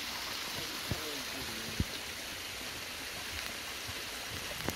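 Water trickling and dripping off a rock face into a creek pool, a steady splashing hiss, with a couple of sharp ticks about one and two seconds in.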